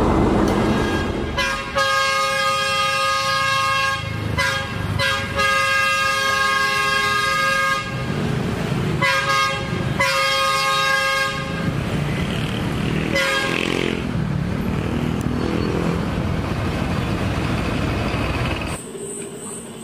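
Diesel locomotive's horn sounding a chord of several tones in a series of long blasts, broken by short gaps. After that, the locomotive's engine running as it moves slowly.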